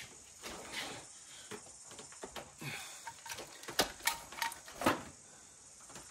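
Light knocks, clicks and scrapes of a large turbocharger being handled and held up against the engine bay, with the sharpest knocks a little under four and about five seconds in.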